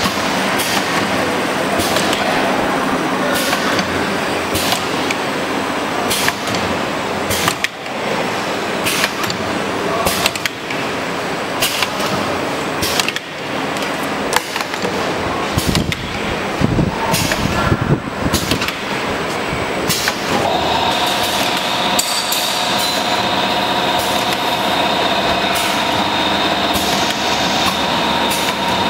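Semi-automatic tube filling and sealing machine running, a steady mechanical noise broken by repeated sharp clacks of its moving parts. About two-thirds of the way through, a steady whine of several tones sets in and continues.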